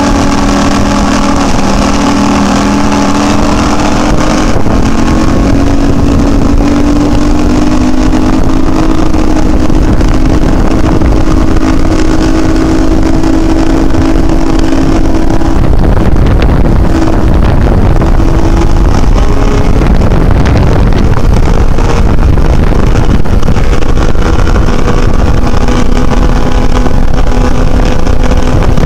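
Mercury 150 outboard on a rigid inflatable boat running at high speed, its engine note creeping slowly upward, under a heavy rush of wind and spray. About halfway through, the engine tone breaks up into rushing noise for a few seconds, then settles back to a steady pitch.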